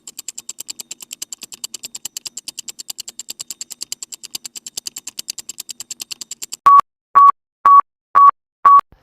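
Rapid, evenly spaced high clicks, about nine a second, for roughly six and a half seconds, then five short electronic beeps at one steady pitch about half a second apart.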